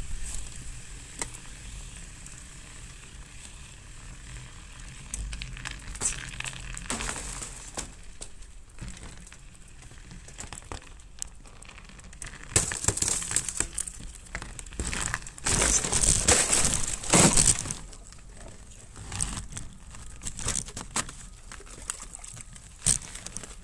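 Mountain bike tyres crunching and crackling over snow, picked up by a camera mounted on the bike. The crunching swells into two louder stretches, about twelve and sixteen seconds in.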